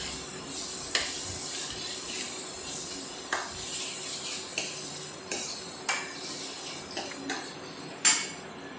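Steel ladle scraping and clinking against a stainless steel kadhai as onion and garlic paste is stirred while it fries in ghee. There are about eight sharp clicks spread through it, and the loudest comes near the end.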